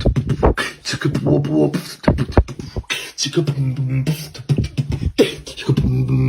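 Beatboxing: sharp mouth-made drum strokes in a rhythm, mixed with held low hummed bass notes.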